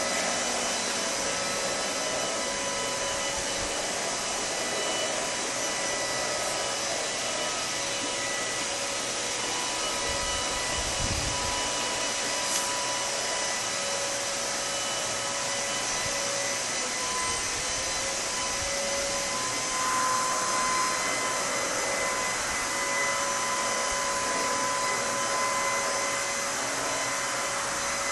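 An electric motor-driven fan running steadily, giving a rushing hiss with a constant high whine. The whine grows a little louder about two-thirds of the way in.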